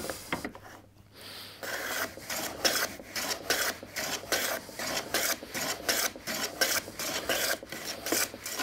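Rider No. 5 jack plane run on its side along a shooting board in quick short strokes, about three a second, its blade shaving the edge of a thin wooden panel. The strokes begin a little over a second in. They take fine cuts as the edge nears a scribed line.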